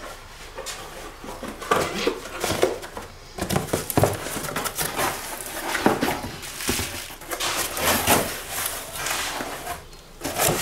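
Cardboard packaging and bubble wrap being pulled off a new car body panel: irregular rustling, crinkling and scraping as the box is torn open and handled.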